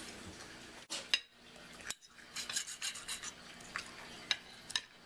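A fork and knife scraping and clicking against a ceramic plate while cutting into a crispy fried pasta patty, a string of light scrapes with a few sharper clinks.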